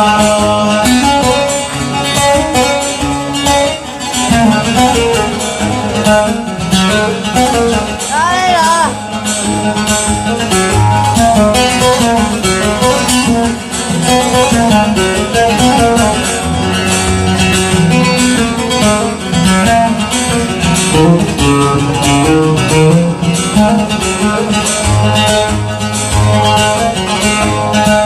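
Instrumental break of a Yemeni song: a quick plucked-string melody over a steady beat, with a brief wavering high note about eight seconds in.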